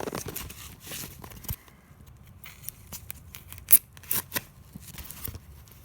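Packaging being opened by hand: a rustling tear at first, then a series of sharp clicks and snaps, the loudest a little under four seconds in.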